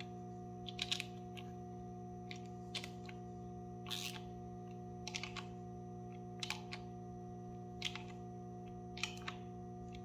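Faint, short metallic clicks and ticks, roughly one a second and unevenly spaced, from a socket on an extension being spun by hand to run timing-gear bolts down. A steady low hum sits underneath.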